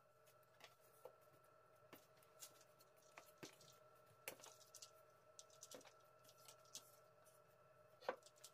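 Faint rustling and soft taps of thin phyllo sheets being laid and pressed into a metal baking tray, with a sharper tap near the end, over a faint steady hum.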